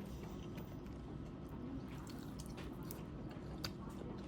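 Faint chewing of fried chicken, with scattered small crisp clicks over a steady low background hum.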